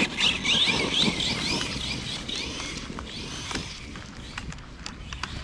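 Kraton 6S RC car's motor whining in quick rising bursts as the throttle is pulsed. The whine grows fainter after about two seconds, and a few sharp clicks follow.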